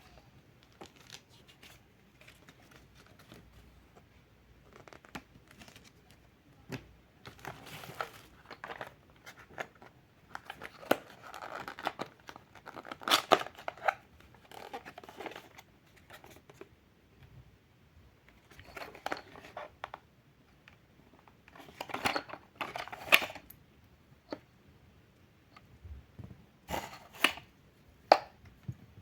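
Intermittent handling sounds: rustling, crinkling and sharp clicks, coming in irregular clusters, loudest about 13 s and 22 to 23 s in and near the end.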